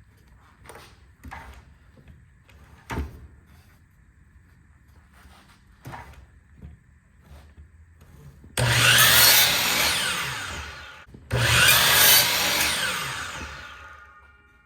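An electric power saw cutting wood twice, two short cuts through a fence picket. Each run starts suddenly and fades as the blade winds down, after a few light knocks of boards being handled.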